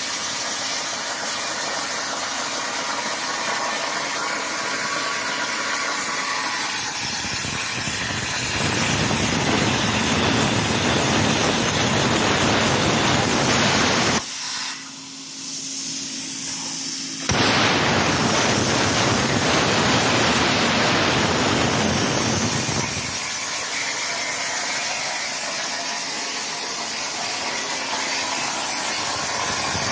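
Everlast Power Plasma 82i plasma torch cutting half-inch steel plate: a loud, steady hissing arc. The arc cuts off about halfway through and fires again about three seconds later, and in between only a faint hum is left.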